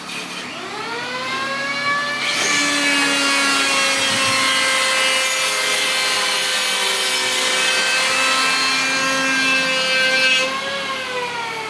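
An electric woodworking power tool spins up with a rising whine over about two seconds. It then runs steadily while cutting wood, with a loud hiss over the motor tone for about eight seconds, and winds down near the end with a falling whine.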